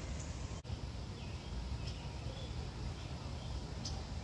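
Outdoor ambience: a steady low rumble with faint bird chirps now and then, cutting out for an instant about half a second in.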